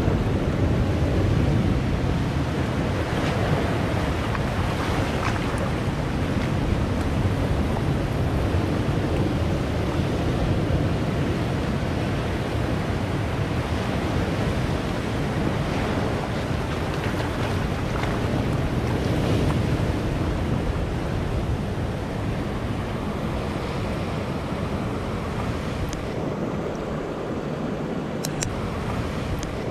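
Ocean surf breaking and washing in among large boulders on a rocky shore: a continuous rush of water that eases a little over the last several seconds.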